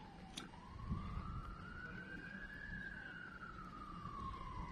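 A faint wailing siren: one tone slowly falling, rising to a peak about two and a half seconds in, then falling again, over a low rumble.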